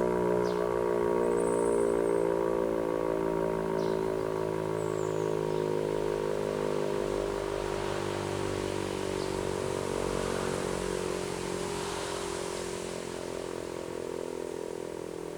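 E57 electromechanical siren running down after a Feueralarm blast: a many-toned wail whose pitch sinks slowly as it fades.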